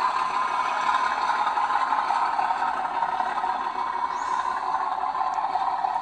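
Sound-fitted model diesel locomotive running, its recorded diesel engine sound played through the model's small onboard speaker, steady and thin with little bass.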